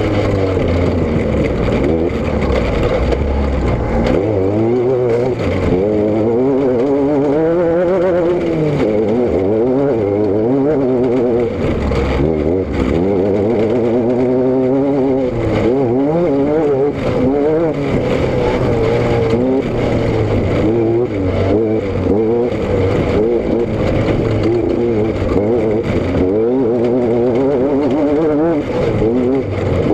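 A vehicle's engine and exhaust running under way. The engine note rises and falls over and over as the throttle opens and closes, over a steady low rumble.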